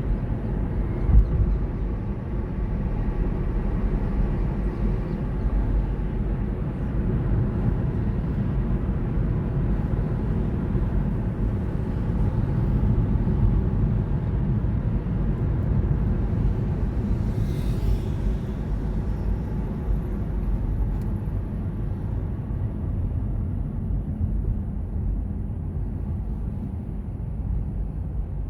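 Car driving through city streets: a steady low rumble of engine and tyres, with one brief thump about a second in.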